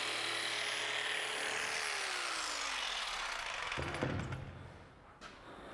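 An electric power tool's motor runs with a steady whine, then is switched off about two seconds in and winds down in pitch over about a second. A single knock follows shortly after.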